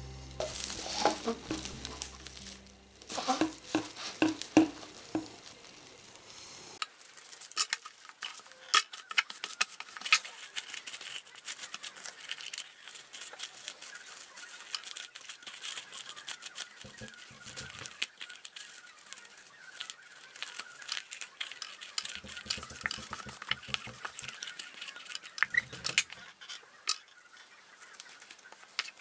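Plastic cling film crinkling and crackling as it is pulled and pressed by hand around a hollow plastic egg mould, with a few light taps of the mould on the table. Background music fades out a few seconds in.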